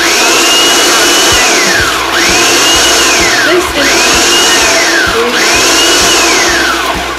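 Food processor running and being pulsed, grinding vanilla wafers and cold butter into crust crumbs: a steady loud grinding with the motor's whine rising and falling about four times.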